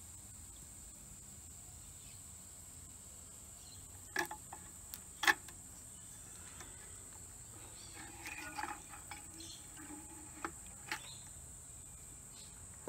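Scattered clicks and light knocks from the electrolysis leads and wire being handled at a plastic bucket rim, two sharp clicks about four and five seconds in and a cluster of softer rustling knocks later on. A faint, steady high-pitched whine runs underneath.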